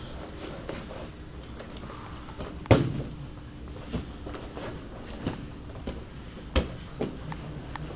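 Grappling on foam mats: bodies and gi fabric scuffling, with several sharp thumps, the loudest about three seconds in and another strong one a little past the middle.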